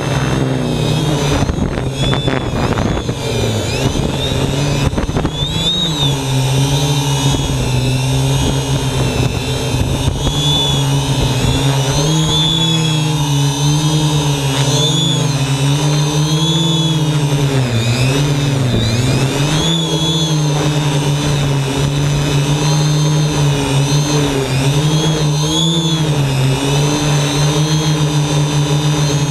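3DR Quad-D quadcopter's electric motors and propellers whining steadily, heard through the camera mounted on the drone itself. The pitch dips and rises again and again as the throttle changes.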